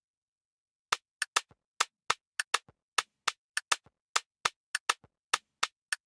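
Sampled Afrobeat percussion loop playing on its own: a syncopated pattern of short, sharp clicking hits, about three a second, starting about a second in.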